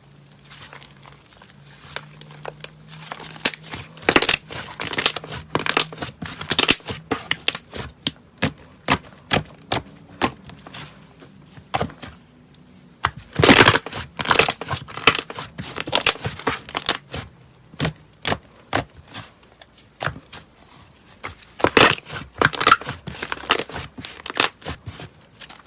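Slime being squished and pressed by hand: rapid crackling clicks and pops, in dense loud runs about four, thirteen and twenty-two seconds in.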